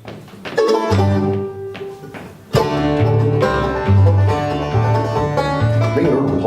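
Acoustic bluegrass band playing live: banjo, mandolin, guitar and bass. A few single plucked notes, then the whole band comes in together about two and a half seconds in with a steady bass line under rapid banjo picking.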